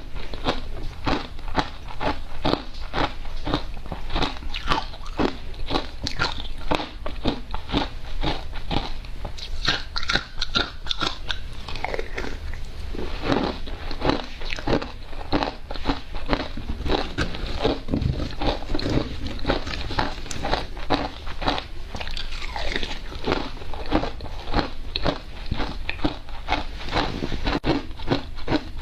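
Close-miked crunching and chewing of hard ice coated in matcha powder: a dense run of bites and crunches, several a second.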